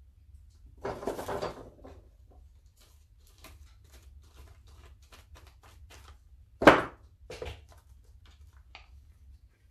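Art supplies being handled on a work table: a short rustle about a second in, scattered light clicks and taps, and a sharp knock of something set down about two-thirds of the way through, followed by a smaller one.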